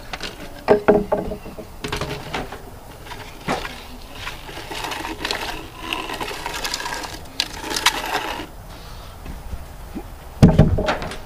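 Heavy sawn cedar cants knocking and scraping against each other as they are shifted by hand, with a loud clunk just under a second in and the heaviest wooden thud near the end.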